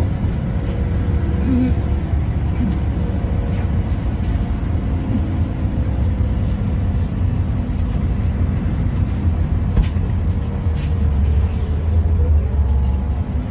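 Interior sound of a LiAZ 5292.22-01 city bus under way: its MAN E0836 LOH01 natural-gas engine and ZF EcoLife automatic gearbox make a steady low rumble. A faint whine drifts slowly in pitch over it.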